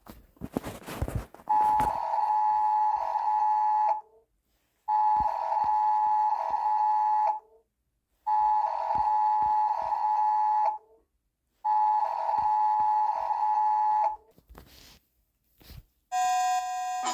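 Emergency alert alarm: a short burst of static-like noise, then a steady two-tone alert tone sounding four times, each about two and a half seconds long with a second of silence between. Near the end a different steady chord of tones begins.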